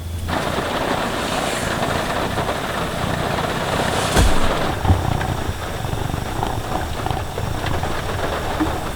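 Steady heavy rain drumming on the roof of the SUV, over a low hum, with a couple of brief knocks about four and five seconds in.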